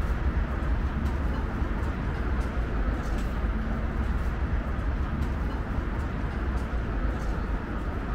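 Street ambience: a steady low rumble of city traffic, with faint scattered ticks.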